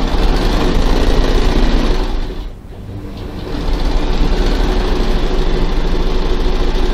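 Freshly oiled Janome electric sewing machine running without thread or needle, purring smoothly to work the oil through. It slows almost to a stop a little over two seconds in, then speeds back up and runs steadily.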